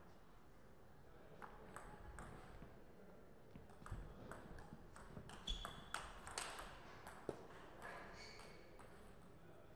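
Table tennis ball clicking off rackets and table in a short rally: a few sparse clicks first, then a quick, irregular run of sharper clicks about halfway through.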